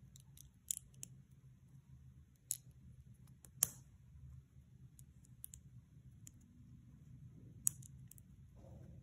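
Plastic Lego bricks clicking as they are pressed onto a small brick-built model: a handful of separate sharp clicks, the loudest about three and a half seconds in.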